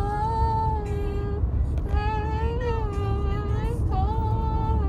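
A woman's voice holding three long, slightly wavering notes, with the low steady rumble of car road noise underneath.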